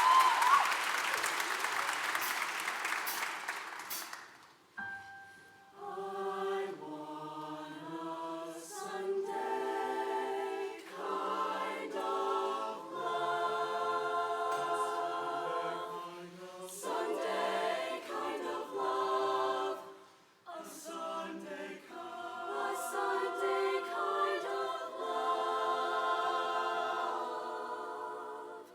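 Audience cheering and applauding, dying away over the first four seconds. Then a show choir sings held chords in several short phrases, with brief breaks between them.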